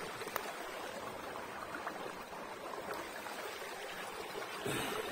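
Shallow stream of water trickling steadily over gravel and stones, a little louder near the end.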